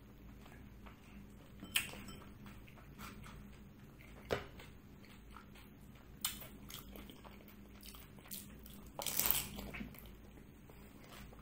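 Close-up eating of panipuri: a few sharp, crisp clicks, then about nine seconds in a louder, longer crunch as a hollow puri shell is bitten and chewed.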